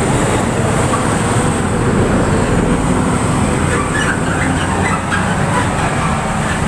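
Steady street traffic noise, a continuous even rumble of passing road vehicles.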